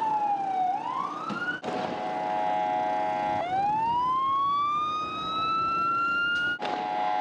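Palestine Red Crescent ambulance siren wailing: a slow falling then rising sweep that breaks off abruptly about one and a half seconds in into a steady multi-tone blare. A second, long, slow rising wail follows, and the steady blare returns near the end.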